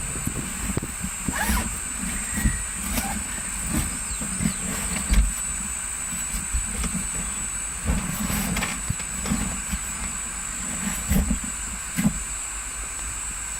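Steady rumble and hiss of a vehicle running in standing traffic, with a constant high-pitched whine over it. Scattered short knocks and thuds come through it every few seconds.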